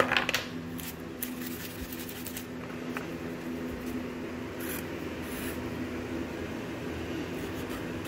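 Steady machine hum in a small workshop room, with a few faint clicks of handling on the bench.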